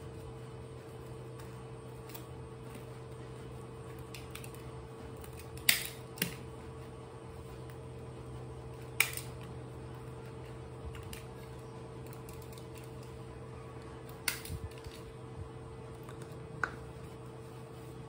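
A handful of short, sharp crackling clicks as a disposable diaper's plastic and tape tabs are handled and fastened on a baby monkey, the loudest about six and nine seconds in, over a steady low hum.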